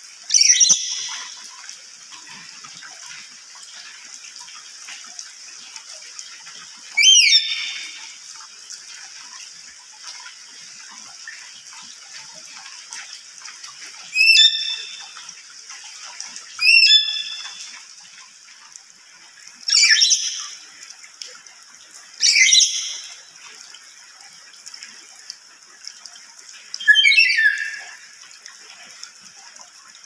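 A black-capped lory giving seven loud, shrill screeching calls a few seconds apart, each about a second long with a sharp rising start. A steady high hiss runs underneath.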